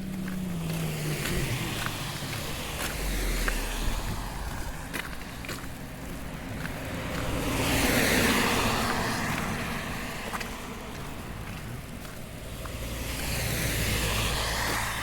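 Cars passing on the road alongside, their tyre noise swelling and fading twice, loudest about halfway through and again near the end, with faint regular footsteps.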